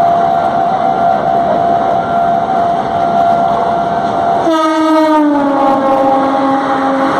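WAP-7 electric locomotive's horn sounding one long continuous blast, its pitch dropping about four and a half seconds in as the locomotive passes at speed, over the steady running noise of a container freight train's wagons.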